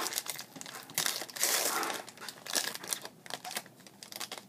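Foil wrapper of a trading card pack being torn open and crinkled by hand: irregular crackling rustles, loudest about a second and a half in.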